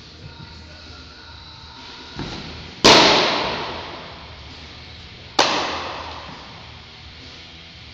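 Two sharp pops of a pitched baseball smacking into a catcher's mitt, about two and a half seconds apart, each ringing out in a long echo through a large hall, with a softer thud just before the first.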